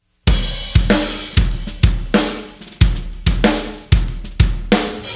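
Drum-kit intro to a song: kick and snare hits with cymbal crashes, starting about a quarter second in and striking roughly twice a second.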